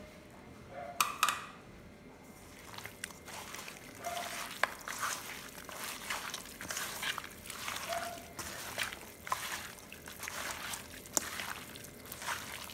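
A hand squishing and turning raw mutton, sliced tomatoes and onions coated in mustard oil in a metal kadai: wet squelching and slapping in uneven strokes, one or two a second. A couple of sharp clicks come about a second in.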